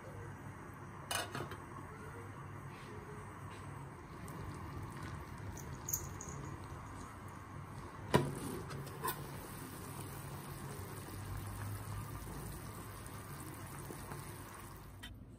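Chicken soup boiling in a stainless steel saucepan on a gas stove, with the metal pot lid knocking against the rim: a few light clinks and one sharp clink about eight seconds in.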